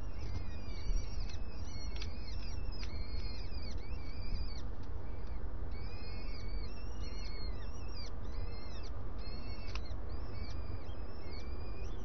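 Peregrine falcon chicks begging for food with rapid, high calls repeated over and over, over a low steady rumble.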